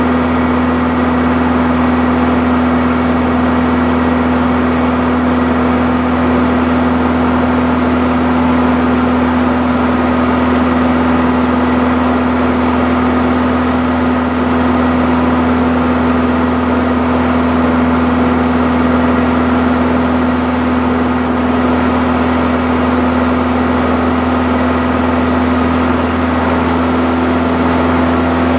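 Engine and propeller of a Morane-Saulnier MS.880B Rallye light aircraft heard from inside the cockpit, a steady drone with a strong low hum, running at climb power just after takeoff.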